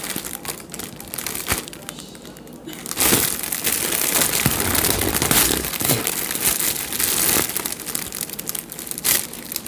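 Foil helium balloon crinkling and crackling as it is handled and pressed to the mouth, louder from about three seconds in.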